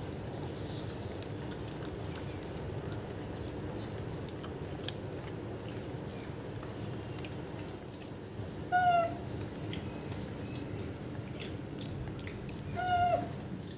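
A rhesus macaque gives two short high-pitched calls about four seconds apart, each dipping slightly at the end, over a steady low background noise.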